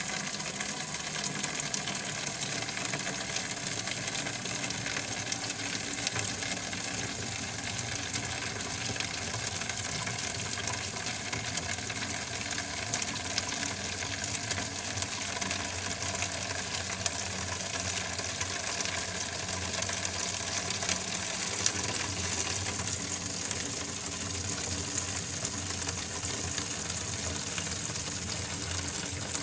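Toilet tank refilling after a flush: the Fluidmaster fill valve hisses steadily at low, gravity-fed 20 psi water pressure, while the refill tube runs water into a plastic jug.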